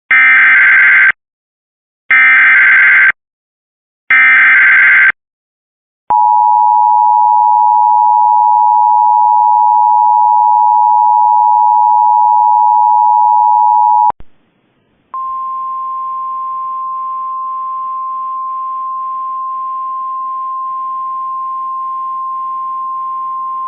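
Emergency Alert System tones announcing a lake effect snow warning: three one-second bursts of warbling SAME digital header data, then the steady two-tone attention signal for about eight seconds. After a short gap, a single steady warning alarm tone, relayed from NOAA Weather Radio, runs for about nine seconds.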